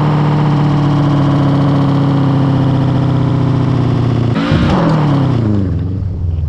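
Car engine held at steady high revs, then falling in pitch over the last couple of seconds as it comes off the throttle.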